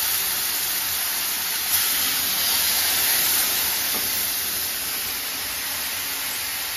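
Sugar water being poured slowly into hot ghee-roasted wheat flour in a kadhai, hissing and sizzling steadily as it boils up with steam. A single light knock a little under two seconds in.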